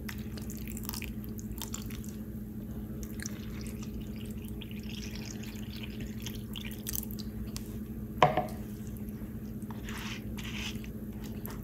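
Pandan water trickling and dripping from a plastic measuring jug onto soaked sticky rice in a glass baking dish, then a silicone spatula squishing through the wet rice near the end. A steady low hum runs underneath, and about eight seconds in there is one brief louder sound that drops in pitch.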